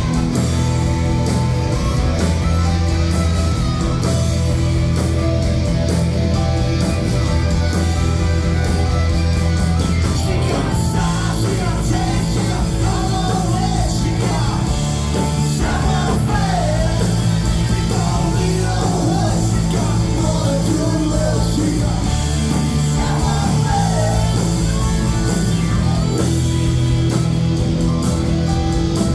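Live rock band playing loud electric guitars and bass, with a singer's voice joining about ten seconds in.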